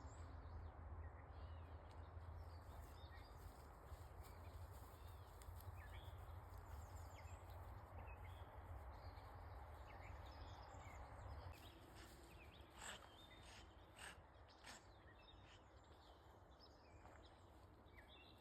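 Faint outdoor ambience: a low steady rush with scattered faint bird chirps. A low rumble fades out a little past halfway, and a few short, sharp sounds come in the second half.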